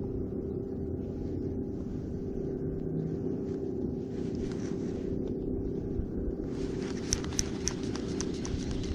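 A steady low hum runs throughout. From about six and a half seconds in comes a quick run of small sharp clicks, a few louder than the rest: a spinning reel being cranked to take in line.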